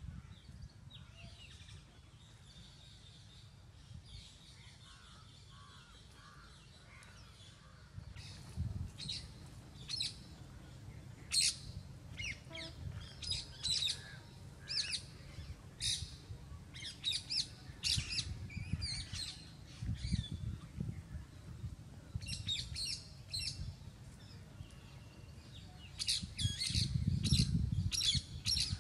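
Small birds chirping, with many short, sharp high-pitched calls in quick clusters from about eight seconds in, over a low rumble that swells twice near the end.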